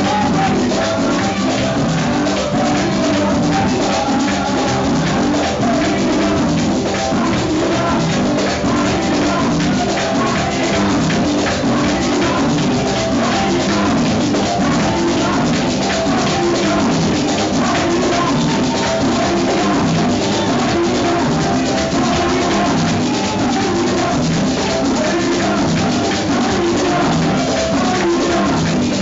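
Live church band playing a lively chorus loud and steady: drum kit, keyboard and shaker, with a voice singing over a microphone.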